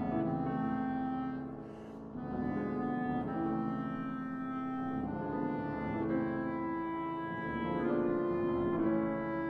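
Clarinet and piano duo playing classical chamber music: the clarinet holds long notes over the piano, with a brief lull about two seconds in.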